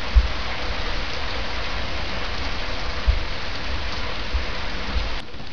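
Heavy rain pouring down steadily, a dense hiss of drops hitting surfaces, with a few short low thumps scattered through it.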